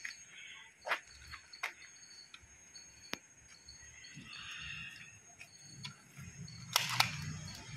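Faint scattered clicks and knocks about a second apart over a faint, even high ticking, with two sharper clicks in quick succession near the end.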